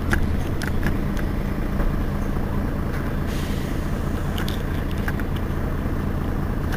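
Mercedes-Benz Citaro city bus engine running at a steady, unchanging speed as a low drone, with a few light clicks over it.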